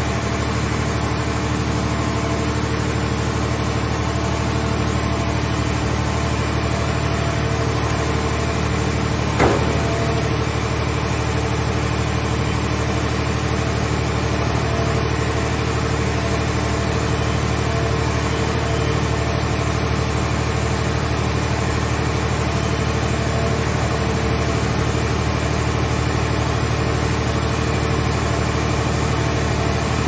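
Steady engine drone of the hydraulic scrap-handling machinery, the grapple arm and portable car baler, running with no change in pace; one sharp metal clank sounds about nine and a half seconds in as the car shell is handled.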